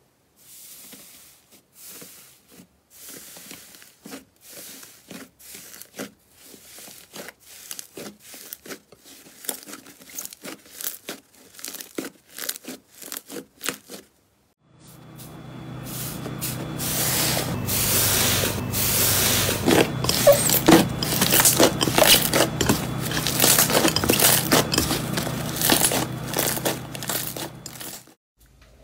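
Slime being squeezed and pressed by hand, giving sparse crackling and popping clicks. After a brief break about halfway, a louder, denser run of crackling follows over a low steady hum.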